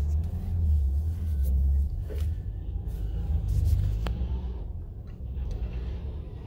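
A steady low background rumble, with a few faint clicks.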